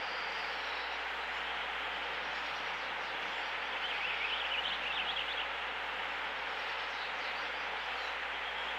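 Steady rushing of a flowing brook, with a bird singing a short burst of fast high notes about four seconds in and faint chirps near the start and end.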